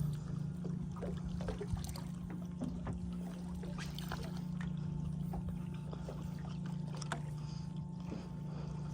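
A boat's steady low hum, with water trickling and light knocks scattered throughout.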